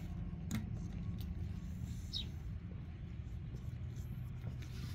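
Steady low hum and rumble, with a few faint light clicks early and a brief high chirp about two seconds in.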